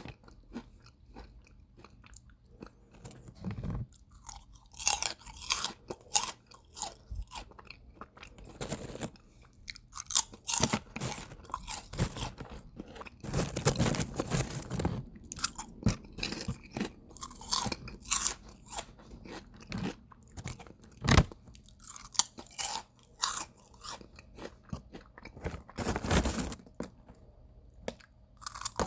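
A person biting and chewing crisp potato chips close to the mic: irregular crunches and crackles in clusters, with short pauses between mouthfuls.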